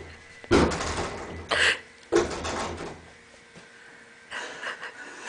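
A cat leaping at and striking wooden closet doors: three sudden bangs, each ringing on briefly, about half a second, a second and a half, and two seconds in.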